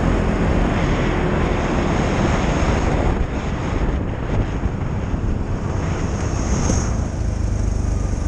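ATV engine running at a steady pace with wind buffeting the microphone and tyre noise from the gravel trail; after about three seconds the engine note sinks under the wind and tyre noise.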